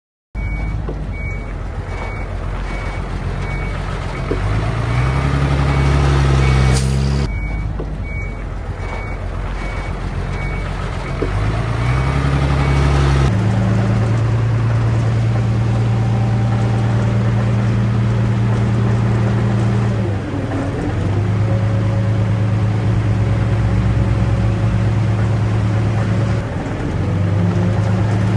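A heavy diesel machine's reversing alarm beeps in an even series over its engine, which revs up twice. About halfway in the beeping stops, and the diesel engine runs on steadily under load, shifting pitch a couple of times.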